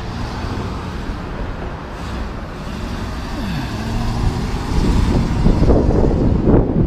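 Road traffic: a car and then a pickup truck driving past. From about five seconds in, wind buffets the microphone louder as the camera starts moving.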